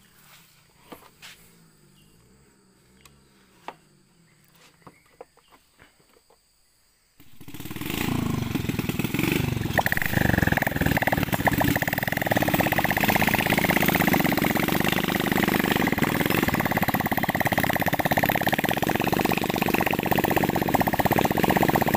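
A few faint clicks, then about seven seconds in a small petrol engine starts suddenly and runs steadily and loudly, with a fast even firing pulse.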